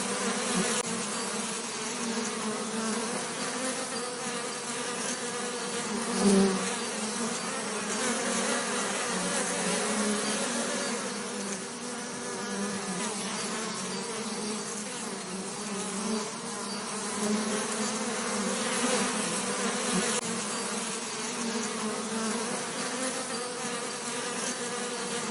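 Bees buzzing continuously, a steady drone of many wingbeats with a brief louder pass about six seconds in.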